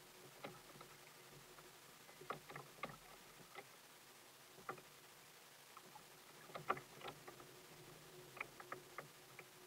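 Small waves lapping against a kayak's hull: faint, irregular taps and clicks, a few bunched together in quick clusters, over a low steady hum.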